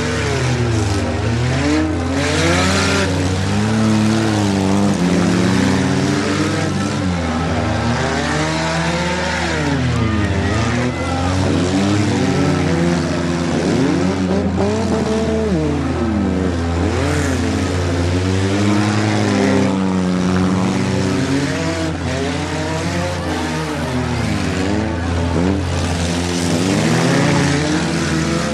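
Several demolition derby cars' engines revving up and down at once, their pitches rising and falling and overlapping as the cars race and spin on a dirt track, with a few short bursts of louder noise.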